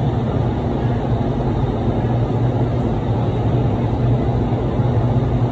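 Vertical wind tunnel of an indoor skydiving centre running at flying speed: a steady rush of air over a deep, constant fan hum, heard through the flight chamber's glass wall.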